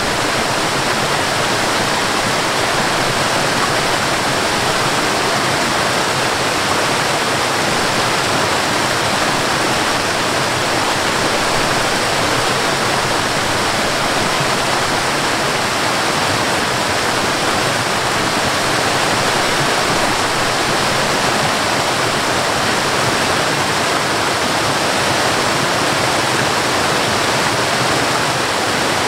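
Waterfall cascading down rock ledges: a steady, even rush of falling water that never lets up.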